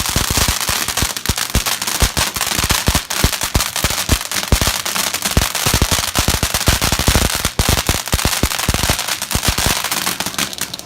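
A firework going off in a rapid, uneven string of sharp cracks and bangs, which stops near the end.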